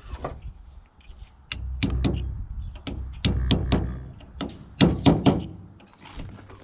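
Metal parts of an excavator's swing drive being handled: a series of sharp knocks and clunks in three clusters, with a low rumble under the first two.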